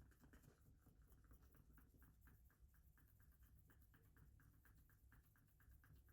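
Near silence with a faint, rapid scratching of about six strokes a second.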